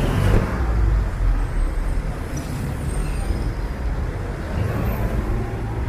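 Busy city street traffic, with a heavy motor vehicle's engine rumbling as it passes close, loudest in the first second or two, then a steady road-noise background.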